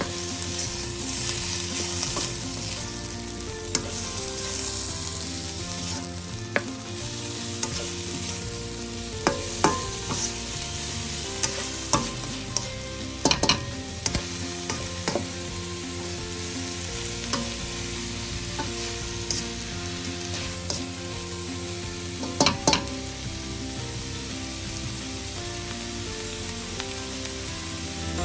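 Riced cauliflower, meat and chopped peppers sizzling as they are stir-fried in a wok. Now and then a spatula scrapes and taps sharply against the pan, with a cluster of taps about halfway through and another about three quarters through.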